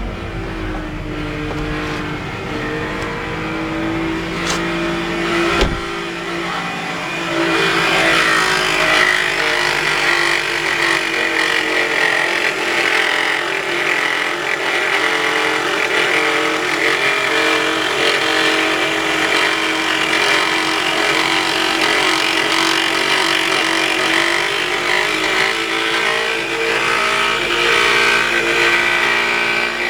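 Toyota 3ZR 2.0-litre four-cylinder engine of a ZRR70 Noah running with a loud, abnormal steady groan, which the owner feared meant engine damage. The groan gets louder and rises in pitch about seven seconds in.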